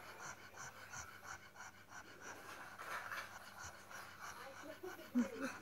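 Pug panting in quick, even breaths, about three a second. A short, louder sound with a bending pitch comes near the end.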